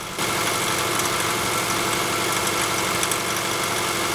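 A 2012 Subaru Forester's flat-four engine running steadily at about 1500 rpm, with a small metallic rattle over it. The rattle shows up when the engine is warm from about 1500 rpm and stays at steady or higher revs. A second mechanic takes it for detonation (pinging).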